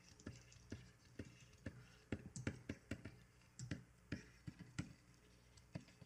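Faint, irregular clicks and taps, about three a second, of a computer keyboard and pen tablet being worked while painting digitally, over a low steady hum.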